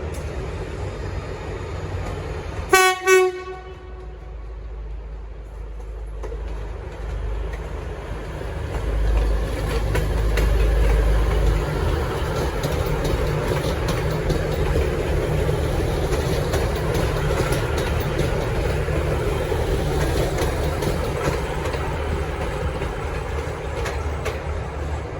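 V/Line VLocity diesel multiple unit VL01 sounds two short blasts on its low-note horn about three seconds in. Its engines then rumble, growing louder as it pulls out and carrying on steadily.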